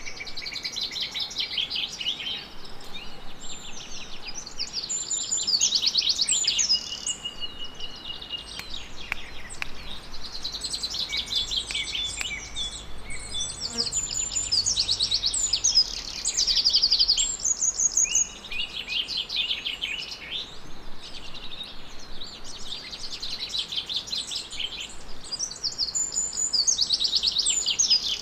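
Several songbirds singing at once, a continuous chorus of overlapping trills, chirps and whistled phrases.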